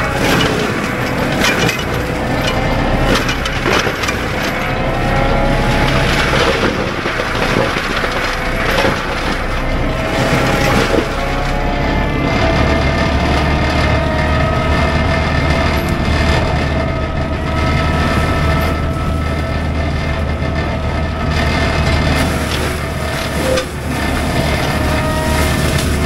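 Cat 299D3 compact track loader running hard with its Fecon BlackHawk forestry mulcher head spinning, heard from the cab: a steady diesel and hydraulic drone with a whine over it, and scattered cracks and snaps of brush and wood being hit.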